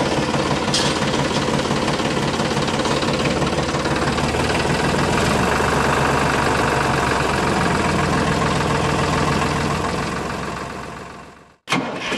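Tractor engine running steadily. It fades out about ten to eleven seconds in and cuts back in just before the end.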